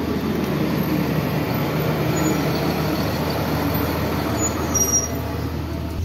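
Blue Bird school bus diesel engine running with a steady low drone. A brief high squeal comes about four and a half seconds in.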